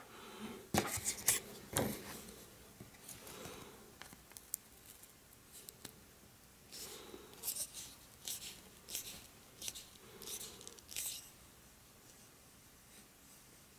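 Wooden parts of a bamboo dragonfly toy being handled: a few sharp clicks of wood on wood, then a run of short scraping rubs, about two a second, as the bamboo stick is worked into the propeller's hub.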